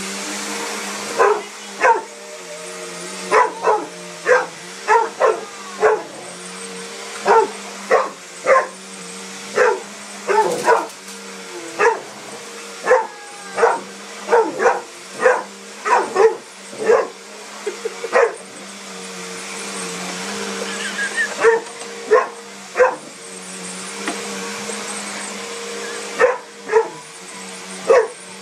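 Mastiff puppy barking over and over, short barks coming about one or two a second with a brief lull past the middle, at a running upright vacuum cleaner it is scared of. The vacuum's motor hums steadily underneath.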